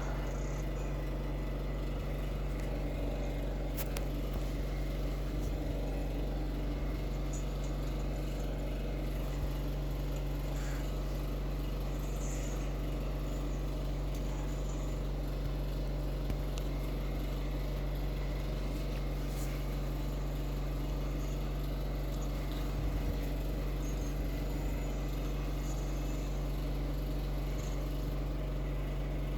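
A steady low electrical hum with a buzzy drone of overtones, unchanging throughout, over faint hiss.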